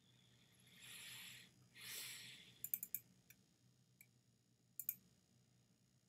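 Computer mouse clicking: a quick cluster of clicks, two single clicks, then a double click. Before the clicks come two short rushes of soft hiss.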